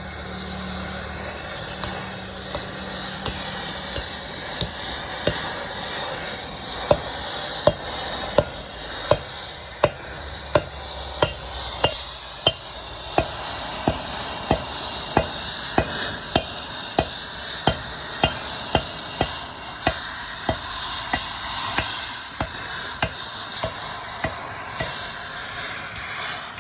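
Metal being struck with a hammer in an even rhythm, about one and a half blows a second, each blow with a short metallic ring, over a steady workshop hiss.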